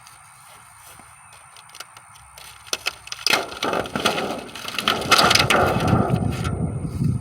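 Wind gusting onto the microphone, starting about three seconds in as a loud, uneven rumble, with crackling and rattling over it.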